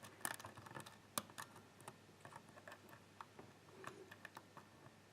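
Faint, irregular metallic clicks of a lock pick working the pins of a six-pin pin-tumbler lock under light tension. Several clicks come close together in the first second or so, then they grow sparse.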